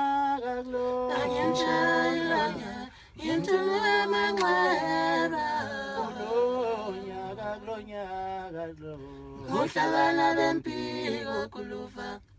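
A group of men singing a cappella in harmony, holding long notes that slide between pitches, with a short pause about three seconds in.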